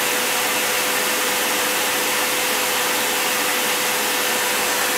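Small electric air blower running steadily, a constant whine over a broad hiss of air jetting from a thin tube onto a scale pan.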